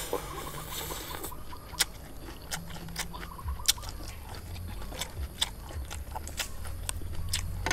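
Wet mouth sounds of boiled octopus being chewed, with scattered sharp sticky clicks and smacks as more octopus is pulled apart by hand.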